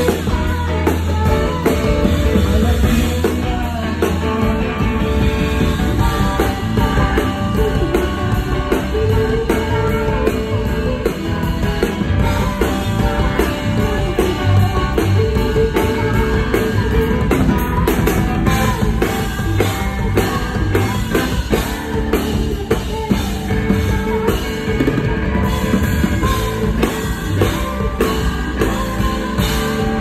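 Live rock band playing: a woman singing lead over electric guitars and a drum kit.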